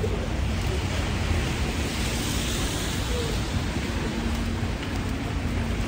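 Wet city street in winter rain: a steady hiss of rain and wet traffic over a low rumble, swelling slightly in the middle.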